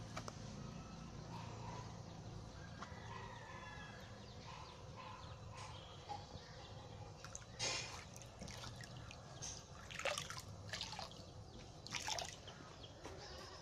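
Faint water dripping and trickling into a pond, with a few short splashes. About twelve seconds in, a beaker of hatched brine shrimp (Artemia) is poured into the water.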